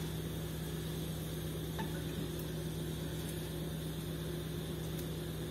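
Steady low kitchen hum with a faint hiss. A couple of faint light taps come about two seconds in, from a wooden spatula against the wok as cooked okra is served out.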